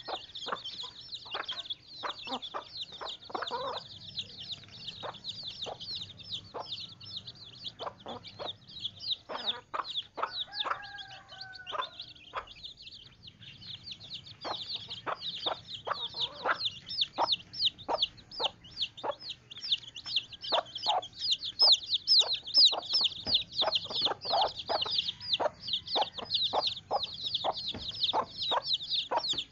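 Chickens clucking, over a continuous stream of quick, high chirps from many calls at once, with short sharp calls scattered throughout.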